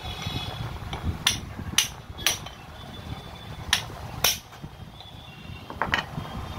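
A hand hammer striking the steel barrel and chisel bit of a 5 kg demolition hammer, about six sharp metallic blows at irregular intervals, to free a bit that has locked in its holder.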